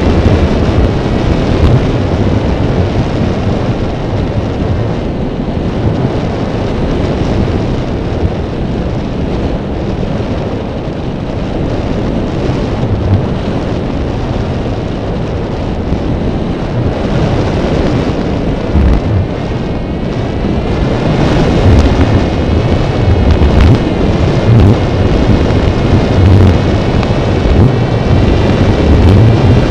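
Airflow rushing and buffeting over the microphone of an RC model plane's onboard camera in flight, a loud, steady rumble. In the second half a faint wavering whine from the plane's motor and propeller comes through.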